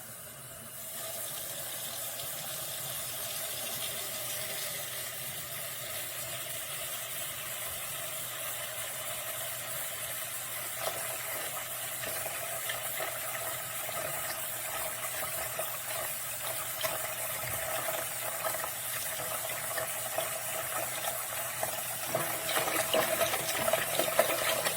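Water running and splashing into a sink or container, starting just before and growing gradually louder.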